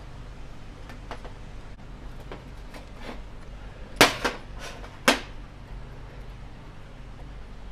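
Metal tool knocks and clanks from handling a motorcycle chain breaker tool on the chain: a few faint clicks, then three sharp metallic knocks within about a second, the first and last loudest.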